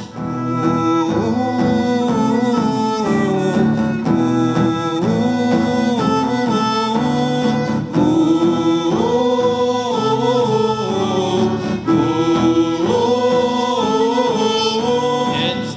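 Instrumental passage of a live acoustic song: a violin carries a sustained, stepping melody over acoustic guitar accompaniment.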